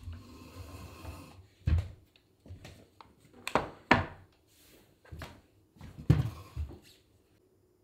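A wooden chair being moved on a wooden floor: several sharp knocks of its legs against the boards, spread over a few seconds.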